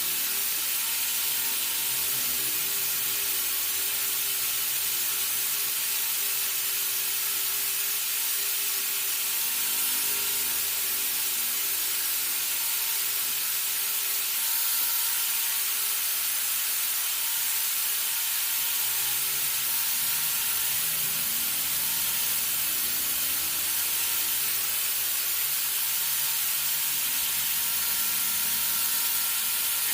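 Gas welding torch flame hissing steadily.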